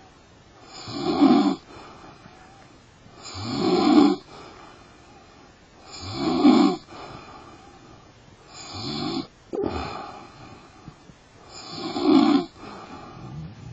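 A person snoring loudly in deep sleep: five long, rasping snores about every two and a half seconds, each swelling to a peak. The fourth snore is weaker and breaks off partway.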